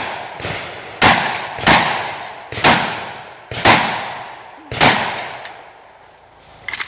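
Vepr 12 semi-automatic 12-gauge shotgun firing five shots about a second apart, each echoing and fading. A brief metallic rattle comes near the end.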